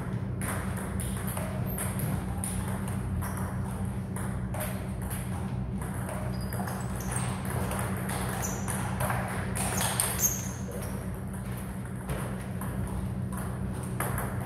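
Table tennis rally: the celluloid ball clicking off bats and table in quick, irregular succession, over a steady low hum.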